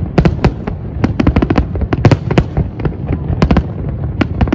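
Fireworks display: a rapid, irregular string of sharp bangs and crackles from shells bursting, over a steady low rumble.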